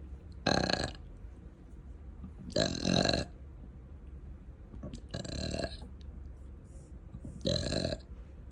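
A person burping four times, each burp short, about half a second, and spaced a little over two seconds apart.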